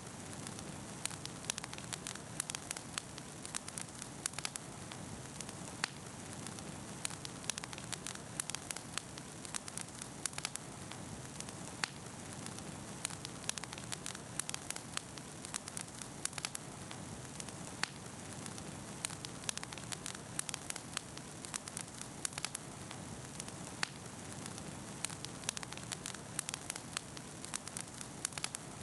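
Campfire burning and crackling, with frequent sharp pops and snaps over a steady hiss of flame.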